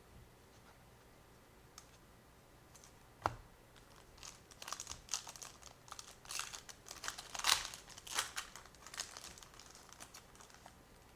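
Crinkling of a plastic trading-card pack wrapper being torn open and handled, a dense run of crackly rustles from about four to nine seconds in, after a single sharp tap about three seconds in.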